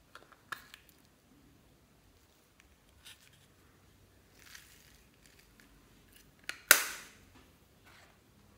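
Small hard-plastic bead container being handled: its lid clicks open, foam beads spill out with a soft hiss, and near the end the plastic container gives one sharp, loud clack.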